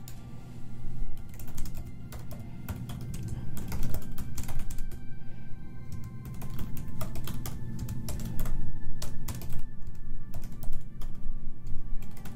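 Typing on a computer keyboard: quick, irregular keystroke clicks with a short lull about halfway through, over background music.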